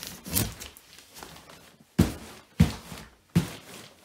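Three sharp thumps, each about two-thirds of a second after the last, in the second half, with a shorter scuffing burst near the start, as a heavy mattress is shoved and bumped through a doorway.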